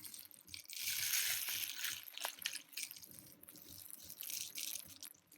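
Sand pouring and shifting, a faint gritty hiss with scattered small crunches, loudest about a second in.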